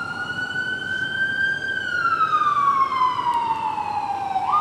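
Emergency vehicle siren wailing: the tone sweeps up, slowly falls over a few seconds, then sweeps up again near the end.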